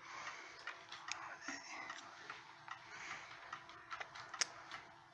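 Ansonia Trieste mantel clock's eight-day movement ticking steadily, with one sharper click near the end.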